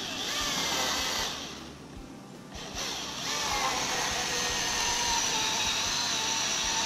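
Milwaukee M18 Fuel brushless battery chainsaw's electric motor whining at speed in two runs: a short one that winds down about a second and a half in, then a steady one from about three seconds on.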